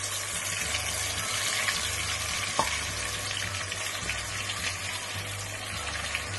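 Pieces of marinated, rice-flour-coated chicken deep-frying in hot oil: a steady, dense sizzle full of fine crackles, with one sharper click about two and a half seconds in.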